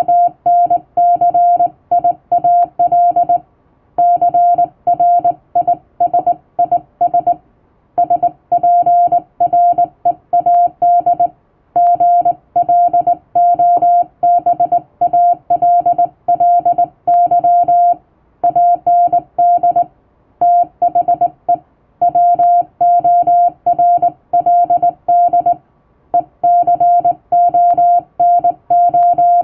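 Hand-sent Morse code in plain English text: a single steady mid-pitched tone keyed on and off in dots and dashes, with short breaks between words.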